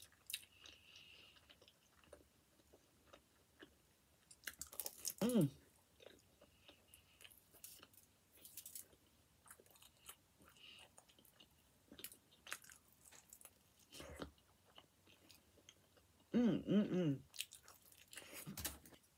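Close-miked chewing of a pizza slice: soft wet mouth clicks and crunches from chewing crust and toppings. Two short hummed voice sounds come about five seconds in and again near the end.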